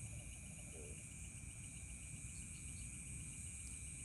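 Night insects, crickets among them, calling steadily: a constant high-pitched trill with a second, lower chirp pulsing fast and evenly, over a low rumble.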